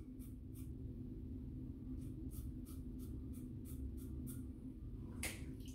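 Pearl Flexi adjustable safety razor with a Kai blade scraping through lathered stubble: a run of short, faint scratching strokes, a few a second, with one louder stroke near the end.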